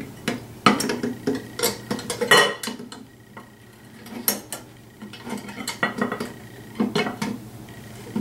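Irregular clinks and knocks of a glass bowl cover against the metal clips and wire rack of a black cooking pot as it is handled and fitted with potholders. There is a quieter stretch about three to four seconds in.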